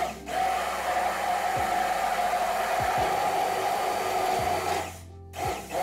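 Hand-held stick blender running steadily, whizzing a jug of liquid jelly and yogurt mix. It cuts out briefly about five seconds in and then starts again.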